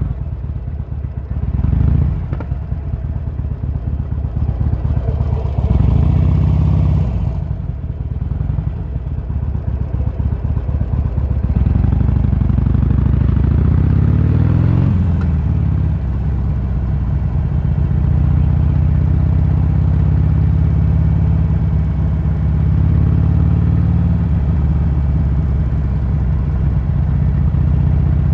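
Harley-Davidson Sportster's V-twin engine running under way. It revs up briefly about two and six seconds in, climbs in revs from about twelve seconds and drops off near fifteen, then runs steadily.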